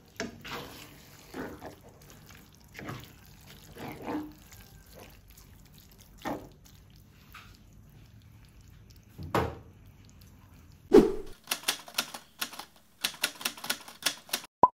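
Creamy sauce and spaghetti squelching and sloshing in a frying pan, in irregular wet pulses about every second or two. About eleven seconds in this cuts to an intro sound effect: a quick run of sharp clicks.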